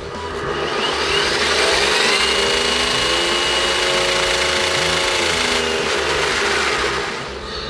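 Small electric motor and gearbox of an RC truck whining as it spins up, holds a steady speed for a few seconds, then winds down.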